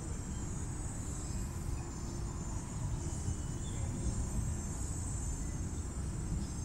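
Steady outdoor background noise: a low rumble with a constant high-pitched insect chorus over it.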